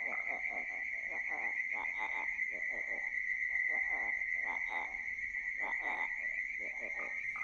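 Night chorus of frogs croaking in short, irregular calls over a steady high-pitched trill.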